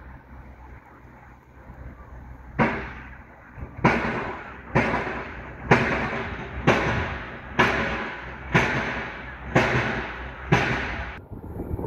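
A passing train's wheels clacking over a track joint: nine sharp, evenly spaced clacks about once a second, each ringing briefly, over a steady low rumble, cutting off suddenly near the end.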